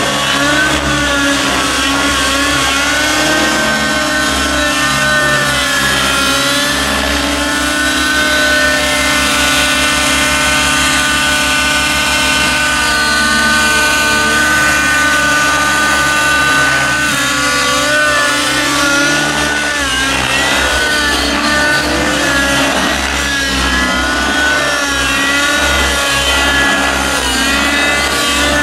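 Radio-controlled aerobatic helicopters flying 3D manoeuvres, their engines and rotors whining steadily, the pitch swinging up and down as they change speed and attitude, with quicker swings in the second half.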